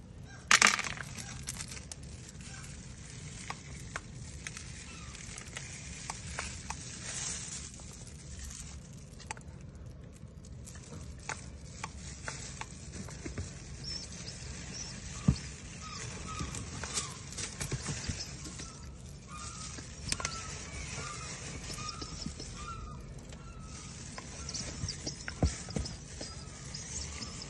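Rustling and scattered clicks of shredded-paper bedding and grain in a cardboard box as two-week-old pigeon squabs are handled, with a loud rustle just after the start. Through the middle comes a run of faint, short, repeated peeps, typical of squabs.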